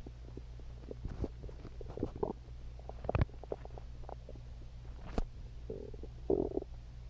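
A human stomach growling: irregular short gurgles, with a strong one about three seconds in and a longer bubbling gurgle near the end, over a steady low hum.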